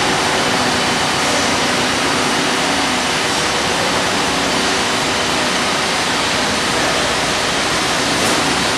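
Steady rushing noise of running machinery with a faint hum, holding an even level throughout.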